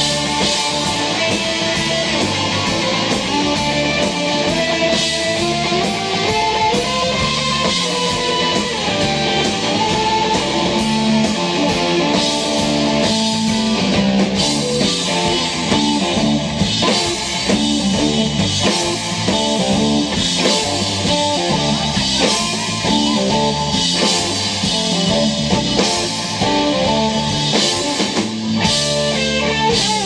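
Live rock band playing an instrumental passage: an electric guitar lead with bending, gliding notes over a drum kit with cymbals and bass.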